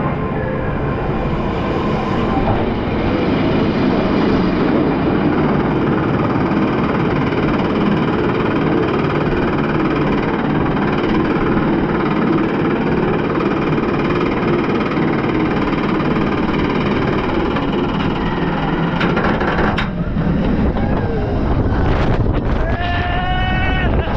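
Phoenix Rising suspended roller coaster train heard from a rider's seat: a steady mechanical rumble as it rolls out of the station and climbs the lift hill. The sound changes about twenty seconds in as the train crests and starts down, and near the end a rider's voice rises in pitch.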